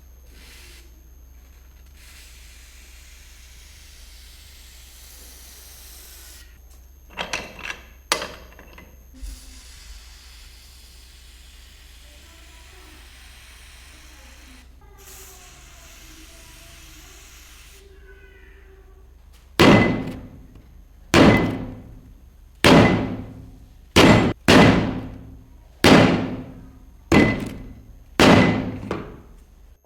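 Metal being struck with a hammer: about nine hard blows roughly a second and a half apart near the end, each ringing briefly. Before them a steady low hum with stretches of hiss and a few lighter knocks.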